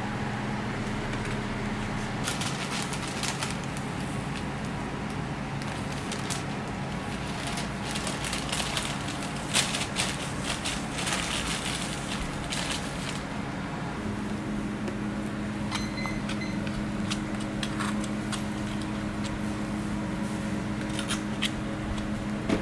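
Steady low hum of kitchen machinery, with stretches of crinkling and light clicks from a waffle being handled in its paper wrapper.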